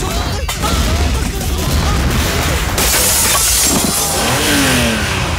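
Film action soundtrack: music with a heavy bass rumble and shouting voices, then a loud shattering crash about three seconds in that lasts a couple of seconds.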